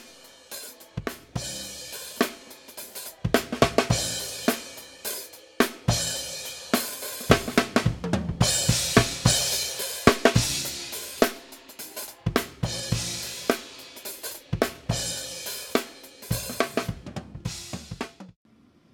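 Drum kit recording (kick, snare, hi-hat and cymbals) played through a Teletronix LA-2A leveling amplifier in limit mode, with its peak reduction being turned as it plays. The drums cut off suddenly near the end.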